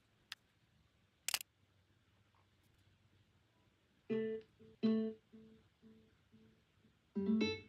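JBL Go Essential Bluetooth speaker's chime, a plucked-guitar-like sound, starting about four seconds in and echoing away in fading repeats about twice a second. A second short chime of quickly rising notes comes near the end as the speaker is being paired with the phone. Two faint handling clicks come in the first seconds.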